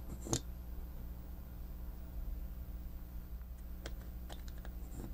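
Small plastic toy gearbox parts being handled, giving a few light clicks and taps: one sharper click about a third of a second in and a scatter of fainter ones near the end, over a steady low hum.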